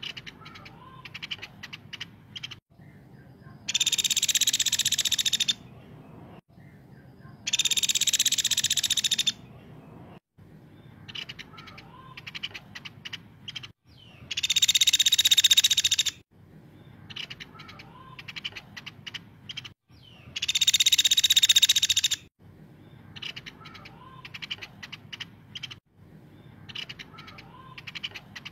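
Caladi woodpecker calling: four loud, high rattling trills of about one and a half to two seconds each, a few seconds apart, with runs of quick sharp ticks between them.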